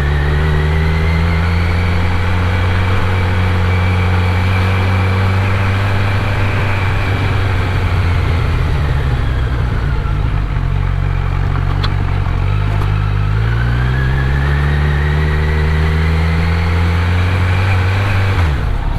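Kawasaki Z900's inline-four engine running under way, its revs rising, holding, easing off about halfway through, then climbing again and dropping off suddenly near the end.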